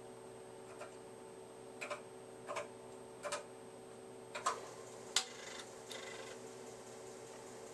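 Computer keyboard keys pressed one at a time as a short name is typed and entered: about six sharp clicks, roughly a second apart, over a steady hum.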